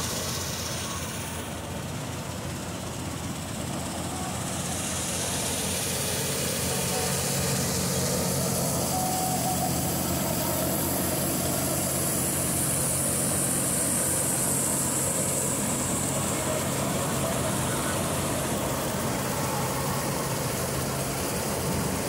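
John Deere 5310 tractor's three-cylinder diesel running steadily under load, driving a tractor-mounted combine harvester as it cuts and threshes wheat. It grows louder about five seconds in as the machine comes close.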